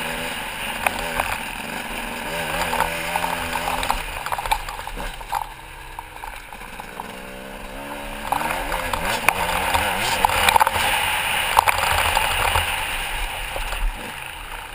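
Motocross bike engine heard from a camera on the bike, rising and falling in pitch as the throttle opens and closes, easing off about halfway through and picking up again. Wind rush on the microphone and sharp knocks from the bumpy dirt track run over it.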